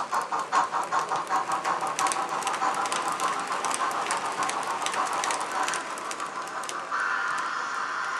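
Sound-decoder chuffing of a model steam locomotive (MODELBEX 231G246 with Loksound) through its small loudspeaker: a fast, even run of short puffs. About seven seconds in, the sound changes to a steadier hiss.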